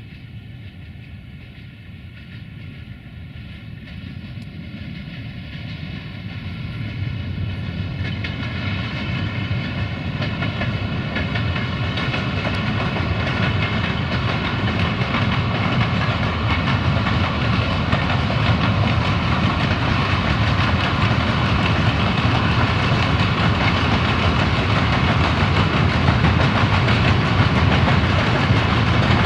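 Electric locomotive hauling a freight train of open wagons as it approaches and grows steadily louder. The wheels run on the rails, with a high whine of several steady tones above them.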